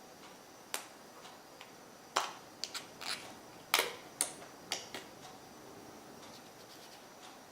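Protective plastic film being peeled off a replacement glass digitizer: a series of small clicks and crinkles over the first five seconds or so, then quiet.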